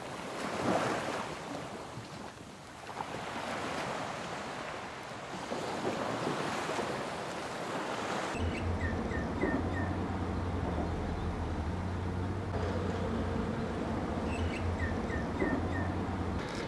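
Sea surf washing ashore: waves swell and fall away, with wind on the microphone. About halfway through, the sound cuts abruptly to a steady low rumble.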